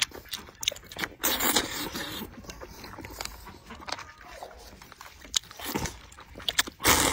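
Close-up eating of noodles and pig's trotter: wet, clicking chewing throughout, with a loud slurp of noodles about a second in and another just before the end.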